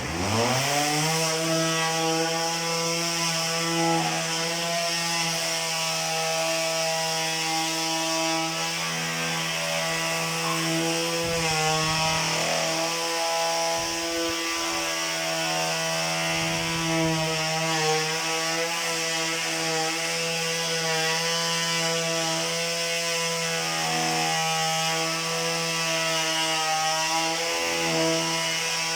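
Parkside PAMS 12 A1 cordless palm sander, battery-powered, spinning up at the start and then running steadily with its pad sanding a birch board. It makes an even buzzing hum that holds its speed under load.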